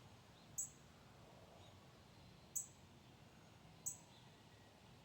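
Female northern cardinal giving three sharp, high chip calls, spaced a second or more apart: the alarm call of a parent agitated by someone at her nest.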